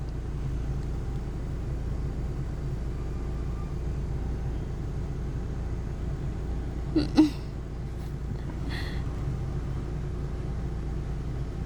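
Steady low rumble, with a short voice-like sound falling in pitch about seven seconds in.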